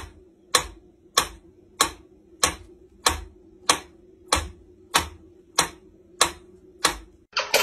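Mechanical pyramid-shaped metronome ticking steadily, a little under two sharp ticks a second.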